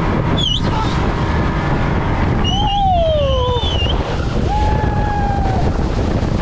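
Speedboat running fast over open water, with heavy wind buffeting on the microphone and water spray hissing along the hull. A few brief pitched sounds rise over the noise, one sliding down in pitch about three seconds in.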